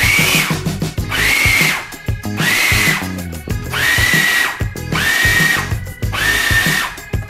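Countertop food processor pulsed six times in quick succession, each pulse a short burst of motor whine and whirring blades, mixing a pale dough.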